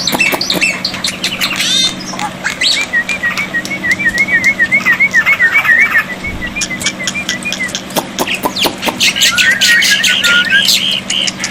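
Black-winged myna (jalak putih) calling with harsh squawks and sharp clicks. From about three seconds in, a fast wavering whistle runs for several seconds, and a shorter one comes near the end.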